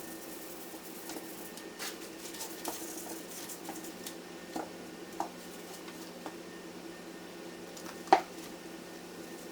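Scattered clicks and light knocks of parts being handled inside a Dell PowerEdge R710 server, played at triple speed, over a steady hum; a sharp click stands out about eight seconds in.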